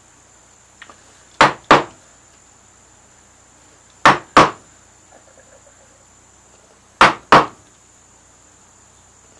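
Turned wooden mallet striking a chisel into soft Alaskan yellow cedar to set carving cuts: three pairs of sharp knocks a few seconds apart, two blows for each cut.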